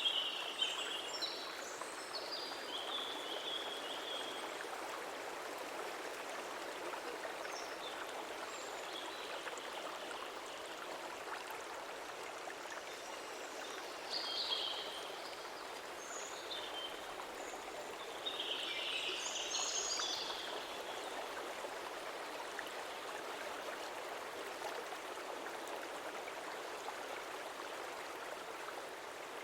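Stream flowing steadily, with a few brief high chirps near the start, about halfway through and about two-thirds through.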